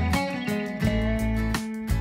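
Background instrumental music: a plucked guitar tune over a deep, sustained bass, its notes changing about every half second.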